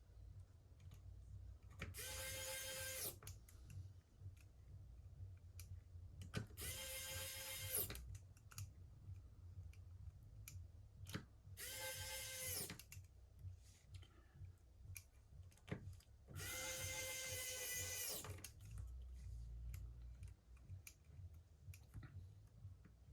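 Small electric precision screwdriver driving the tiny screws of a phone's back plate: four short runs of about a second each, a steady motor whine, with light clicks of handling between them.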